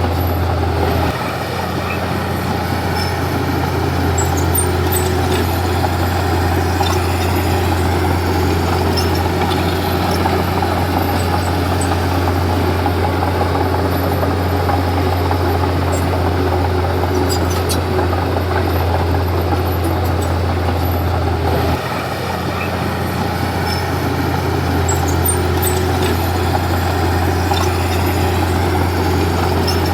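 Komatsu D31P crawler bulldozer's diesel engine running steadily under work. The engine note dips briefly about a second in and again about twenty-two seconds in, then picks back up.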